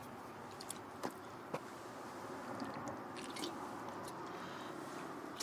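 Faint mouth and swallowing sounds of a man taking a painkiller with a drink of water: a few soft clicks over a low steady hiss.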